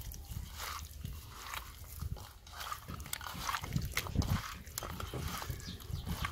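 Hands mixing raw fish pieces in a glazed clay bowl, making wet squelching and irregular small clicks as the pieces knock together and against the bowl.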